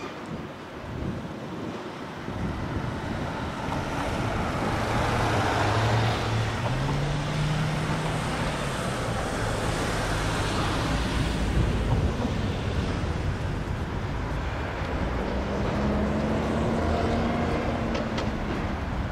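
Road traffic: a motor vehicle engine running over tyre and road noise, its pitch rising twice as it speeds up.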